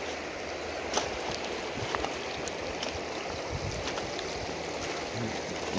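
Shallow river water running over a cobble riffle: a steady rushing and rippling.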